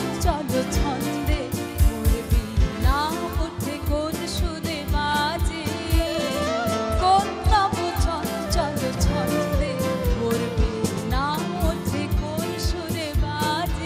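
Woman singing a Bengali song to harmonium, tabla, acoustic guitar and keyboard, the tabla keeping a quick steady beat.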